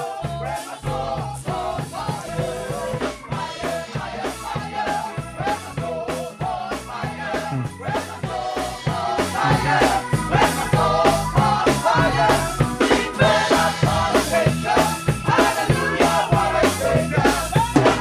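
Upbeat gospel choir singing over a live band, with a prominent bass guitar line and a drum kit keeping a steady beat. The music grows fuller and louder about halfway through.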